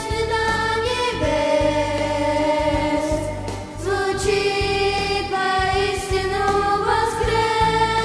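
A group of four children singing a Russian-language Christian song together into microphones, with instrumental accompaniment underneath. Notes are held about a second each.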